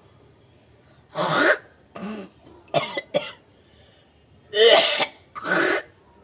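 A woman clearing mucus from her nose and throat in a run of about six short, harsh bursts, the two loudest about a second in and near five seconds in.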